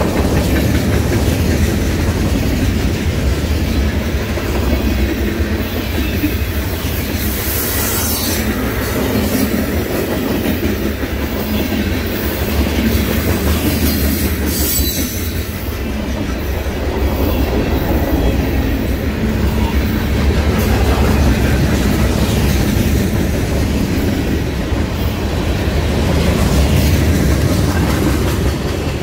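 Freight cars rolling past on steel rails: a steady, loud rumble and rattle of wheels and car bodies. It begins to fade near the end as the last car goes by.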